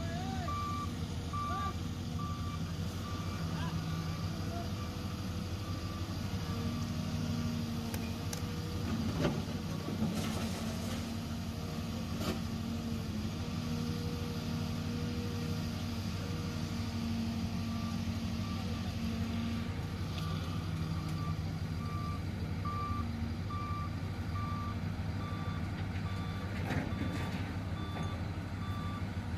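CAT 320C excavator's diesel engine running steadily under working load while it digs and loads, with a warning alarm beeping at an even pace throughout. A few short knocks come about a third of the way in.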